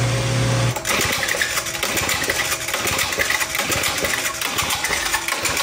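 Tecumseh HS40 two-stroke engine on a vintage Powell Challenger mini bike being pull-started: the recoil starter cranks it over with a rapid clatter, but the engine does not fire. A steady hum cuts off just under a second in.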